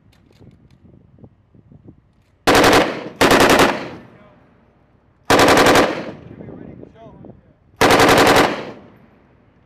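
M240B 7.62 mm machine guns firing four short bursts of about half a second each. The first two come close together about two and a half seconds in, and the others follow a few seconds apart. Each burst trails off after it stops.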